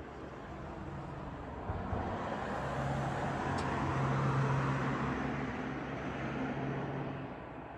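A motor vehicle passing by: its engine and tyre noise swell to a peak about halfway through and then fade away.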